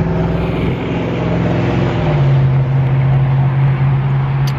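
A motor vehicle passing close by on the street, its engine a loud steady hum that drops slightly in pitch about two seconds in.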